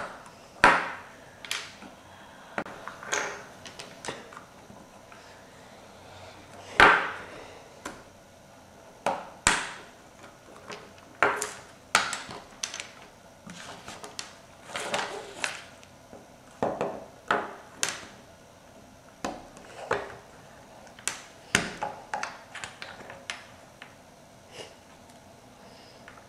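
LEGO bricks being handled and pressed together on a wooden table: irregular clicks and knocks of plastic on plastic and on wood, two of them sharper than the rest.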